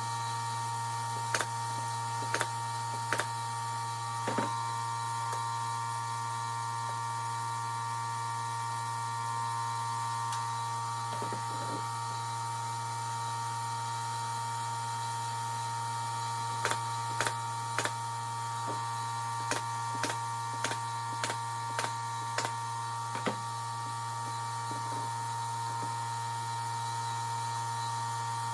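Brad nailer firing single sharp shots: four spread over the first few seconds, then about ten more in quick succession, each half a second to a second apart, later on. A steady hum runs underneath.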